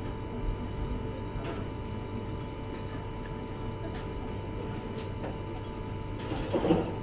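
Restaurant room tone: a steady electrical hum with a few faint clicks of chopsticks against a ceramic rice bowl, and a short louder noise near the end.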